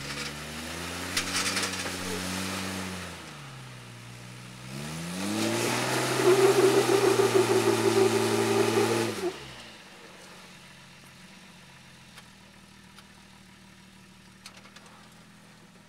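Lifted Jeep Cherokee XJ's engine revving under load as it crawls up a rock ledge, in two pushes: a first rise held for a couple of seconds, then a louder, longer rev from about five seconds in that falls away near ten seconds, leaving the engine idling low.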